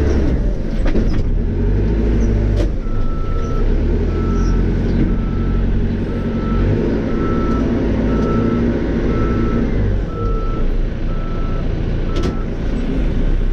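Cat 430E backhoe loader's diesel engine running steadily, with its reverse alarm beeping about once a second, from about three seconds in until shortly before the end, as the machine backs up. A few sharp knocks, the loudest near the start and about twelve seconds in.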